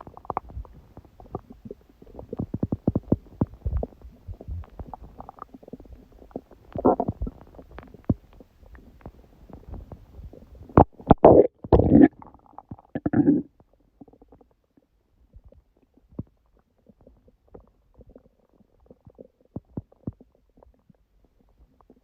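Human stomach growling and gurgling during active digestion of a large udon meal: an irregular run of crackly clicks and bubbly gurgles, loudest about halfway through, then thinning to sparse faint pops.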